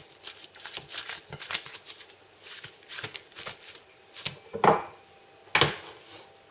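Fingers pressing and spreading sticky sushi rice over a sheet of nori on a bamboo rolling mat: many small clicks and soft taps, with two louder handling noises about a second apart near the end.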